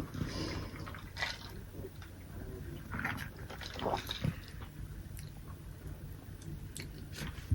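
Faint sips and swallows of soda from a cup, with a sharp click at the start and another near the end.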